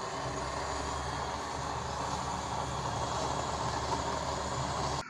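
Small electric blower fan of a used-oil burner stove running, a steady rushing hum as it forces air into the burning oil in the burner pot; it cuts off suddenly near the end.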